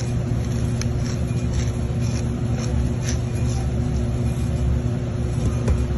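A steady low mechanical hum runs throughout. Over it come a few faint, short gritty crunches from a hand pepper mill grinding black pepper, mostly in the first half.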